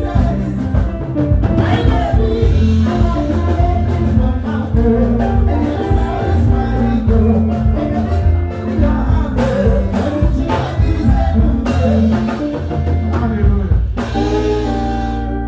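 Loud music with singing, a strong bass line and drums.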